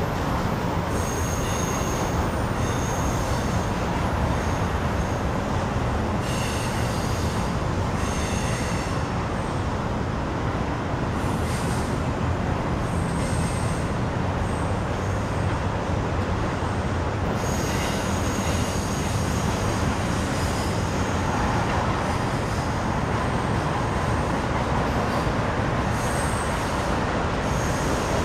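Double-stack intermodal freight cars rolling past: a steady rumble and rattle of wheels on the rails. High-pitched wheel squeal comes and goes several times.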